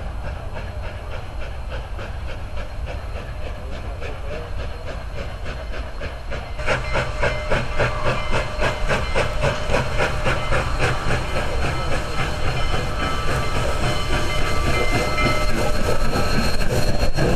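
Union Pacific 844, a 4-8-4 steam locomotive, approaching and passing close by: steam hiss and rail rumble growing louder, with a sudden jump in loudness about a third of the way in.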